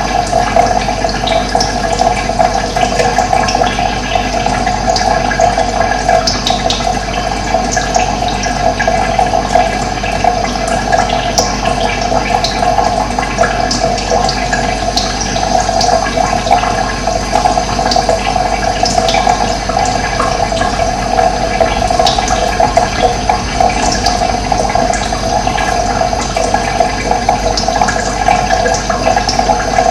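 Running water flowing in a steady, unbroken rush, with small birds chirping briefly now and then above it.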